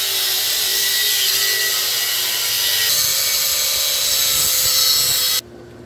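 Power tool cutting into the metal of a Hydro Boost brake booster held in a vise, a loud steady cutting noise that cuts off suddenly near the end.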